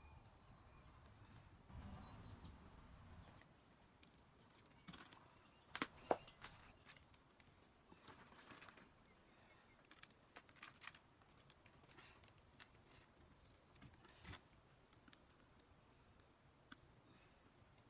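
Near silence with scattered faint clicks and rustles of hands working potting mix and small plastic plant pots, with a couple of sharper knocks about six seconds in.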